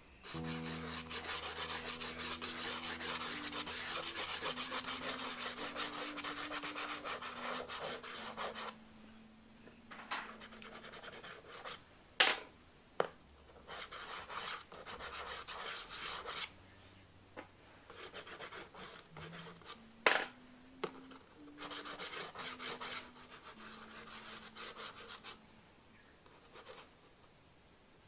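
Soft pastel and conté being stroked and rubbed across the paper of a drawing: a dense run of quick scratchy strokes for about the first eight seconds, then shorter, broken passes. Two sharp taps, about twelve and twenty seconds in, are the loudest sounds.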